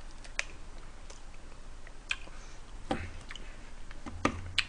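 Eating at the table: quiet chewing and mouth sounds with a few sharp clicks of food being handled, and two soft knocks about three and four seconds in.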